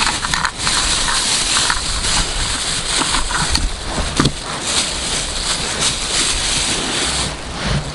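Thin plastic bag crinkling and rustling as hands open it and handle the ice-fishing rod and tackle packed inside.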